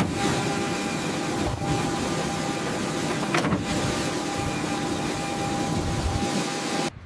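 Airliner wing spoiler panels retracting under hydraulic power: a steady, loud rushing mechanical noise with a faint hum and a couple of light clicks, cutting off abruptly near the end.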